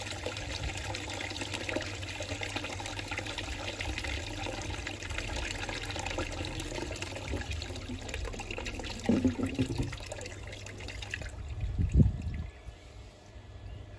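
Water running steadily from an outside tap through a pressure-gauge test fitting, at just over 4 bar boosted mains pressure. The flow cuts off about eleven seconds in, followed by a single low thump.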